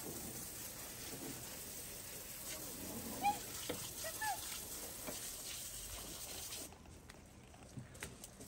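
Garden hose spraying water in a steady hiss that stops about two-thirds of the way through, with a couple of short faint chirps in the middle.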